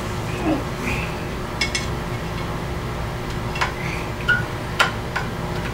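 A screwdriver driving the upper vent plug screw into an outboard's lower-unit gearcase after a gear-lube fill: a few sharp metal clicks, spread out, over a steady low background hum.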